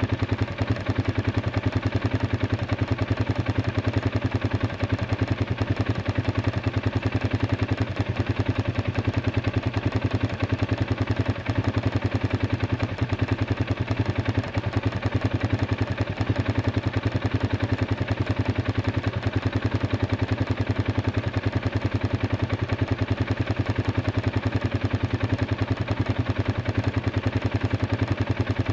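Arctic Cat 500 ATV's single-cylinder engine idling steadily, its fast, even firing pulses unchanged throughout, after it was brought back from a dead-battery no-crank.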